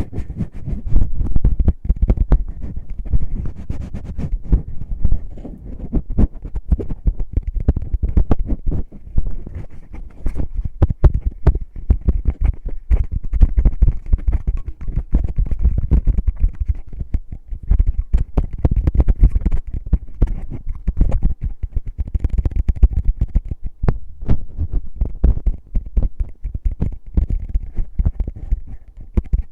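Fingertips rubbing, scratching and tapping on the ears of an ear-shaped binaural microphone: a dense, irregular run of low thumps and scratchy rustles with many short clicks.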